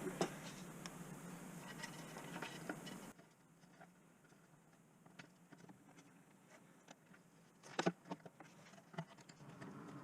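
Faint clicks and light taps of small parts being handled. The loudest is a sharp double click about eight seconds in.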